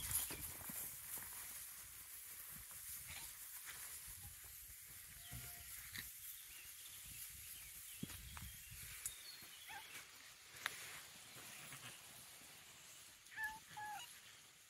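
Domestic cats meowing: a short meow about five seconds in, then a few short meows close together near the end. There are scattered sharp clicks over a faint background hiss.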